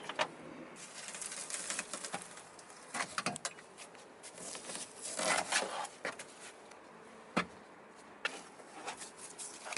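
Irregular scraping, rustling and short knocks of mud-caked, partly frozen interior parts being handled and pulled out of a car's cabin.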